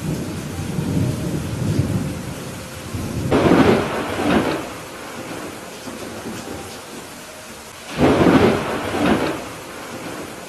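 Thunderstorm: steady rain with a low rumble of thunder, then two sharp thunderclaps, about three seconds in and again about eight seconds in, each lasting a second or so.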